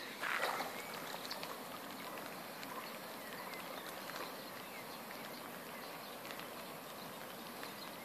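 Faint water sounds of a rough collie swimming in a lake, soft lapping with light rain pattering on the surface as scattered small ticks. A brief louder noise comes about half a second in.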